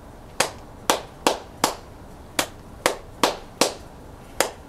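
One person clapping her hands in a steady cheer rhythm: groups of four sharp claps, each group starting about every two seconds.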